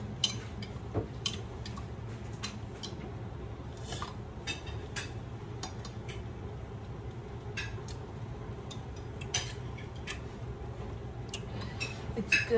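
Metal spoon clinking and scraping against a small glass jar while salsa is stirred and spooned out, in scattered light clicks over a steady low hum.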